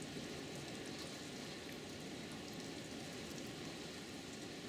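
Really hard rain falling steadily, an even hiss of countless drops with scattered faint ticks of nearby drops.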